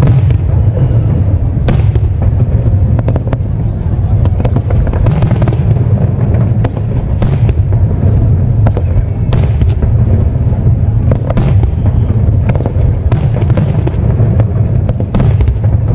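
Aerial fireworks shells going off in quick succession: a continuous low rumble of booms, with sharp bangs at irregular intervals every second or two.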